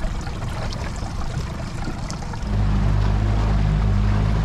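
Outboard motor running at idle with low, uneven rumble, then throttled up about two and a half seconds in to a louder, steady low drone as the boat gets under way.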